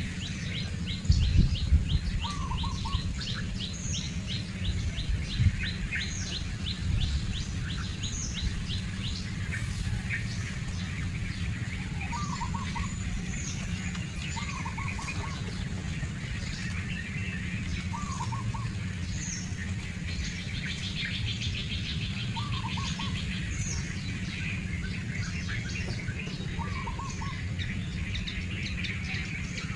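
Wild birds chirping: a fast run of high chirps over the first third, then scattered chirps, while a shorter, lower call repeats every two to three seconds throughout.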